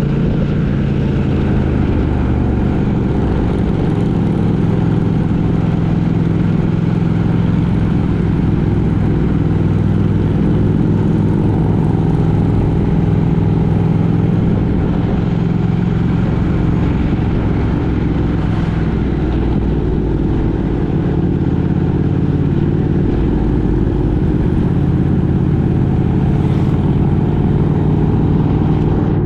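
Road vehicle in motion: steady engine hum and road noise, the engine note shifting a little now and then with speed.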